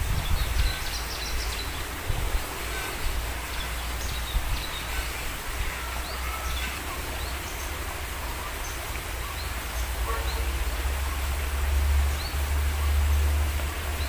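Outdoor ambience with a low rumble on the microphone that grows louder near the end. Scattered short, high bird chirps come through it.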